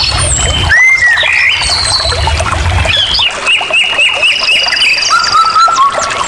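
Several birds calling and singing at once over a steady background hiss, including a quick run of about seven repeated notes midway through.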